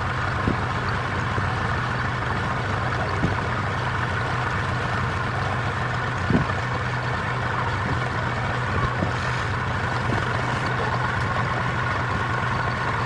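Wood lathe motor running steadily with a constant hum, with a few short knocks.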